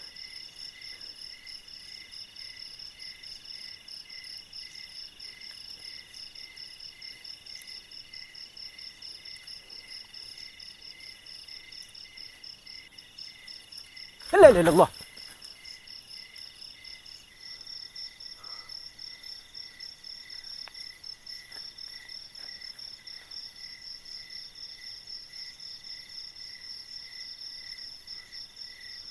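Crickets and other night insects trilling in a steady chorus of several high, pulsing tones; one of the tones drops out a few seconds after the middle. About halfway through, a man gives one sudden loud startled cry of "Allah".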